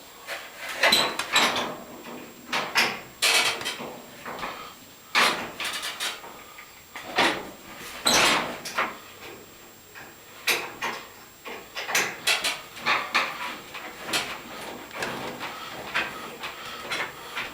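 Irregular clicks, scrapes and knocks of hands and tools working at a gas dryer's gas valve and its solenoid coils.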